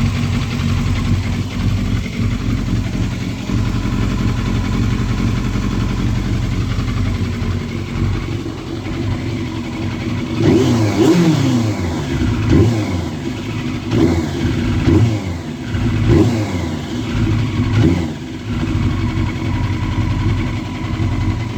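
Yamaha Fazer 600 inline-four engine idling steadily, then blipped several times in quick revs that rise and fall, on a bike shown for a misfire.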